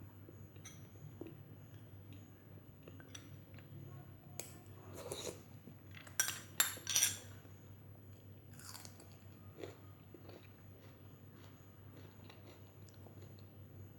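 Close-up eating sounds: a person chewing and biting food, with a few louder sharp crunchy bites about halfway through and soft mouth clicks around them.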